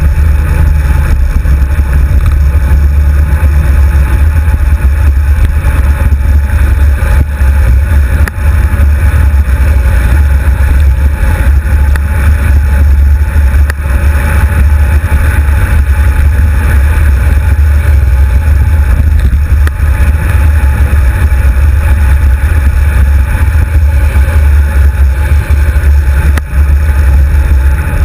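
Wind rumbling on a GoPro HD2's microphone as it rides along on a road bike: a loud, steady low rumble, with a few brief dips.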